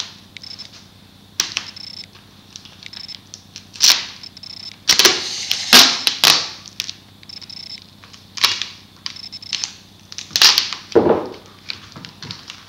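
Duct tape pulled off the roll in several loud, sudden rips, with quieter rustling and rubbing as the tape is pressed down around a boffer sword's pipe handle and foam.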